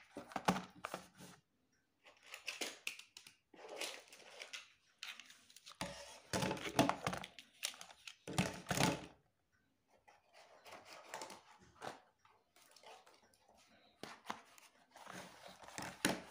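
Plastic 8mm film reels and cardboard film boxes being handled and set down on a wooden table: irregular knocks and clacks mixed with rustling of cardboard.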